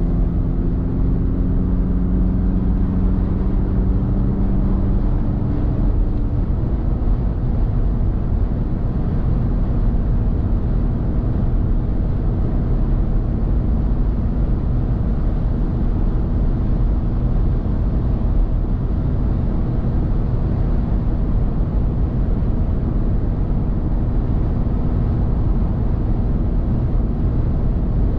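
Steady road and engine noise of a car cruising on the motorway, a heavy low rumble with a faint steady hum. A few higher humming tones fade out about six seconds in.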